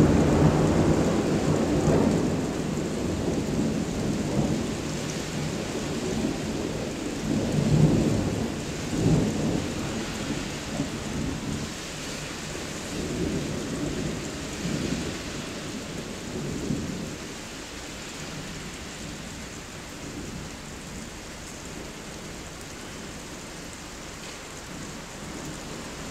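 Thunder rolling over steady rain. The rumble is loudest at the start and fades with a few renewed swells over the first fifteen seconds or so, leaving only the hiss of the rain.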